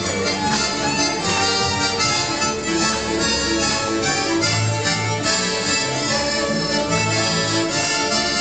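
Polish highland folk band (kapela) playing a tune on two fiddles, a piano accordion and a double bass, the bass sounding a steady pulse of low notes under the fiddle and accordion melody.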